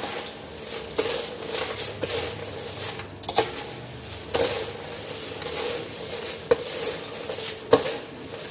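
A slotted steel ladle scrapes and clinks against a stainless steel plate while dry, crisp fried poha chivda is tossed and mixed, the flakes rustling. Sharp metallic clinks come at irregular moments, about one every second or two.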